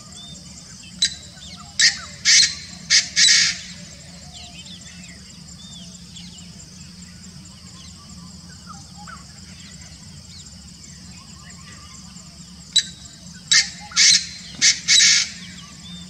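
Painted francolin calling: two phrases of five sharp notes each, the first note a brief click and the later notes longer, about a second in and again near the end.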